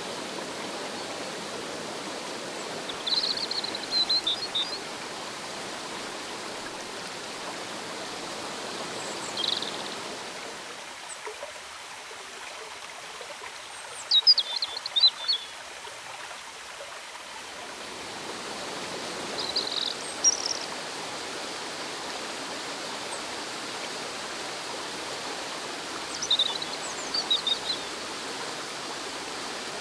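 Fast river water rushing over rocks, a steady hiss, with birds chirping in short high phrases about every five or six seconds. The water is quieter for several seconds in the middle.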